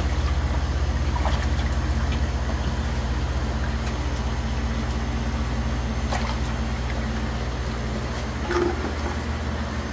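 Steady low mechanical hum from the aquaponic system's equipment, with water churning in a trout tank as the circulating water flows in.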